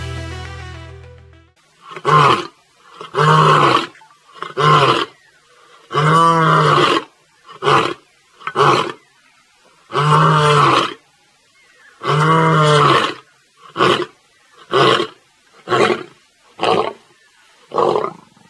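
Male lion roaring: a series of about a dozen deep calls, the longest and fullest near the middle, tailing off into shorter grunts.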